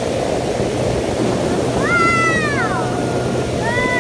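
Steady low rumble of a boat running along a mangrove channel. About two seconds in, a high meow-like call rises and falls, and a second, shorter one follows near the end.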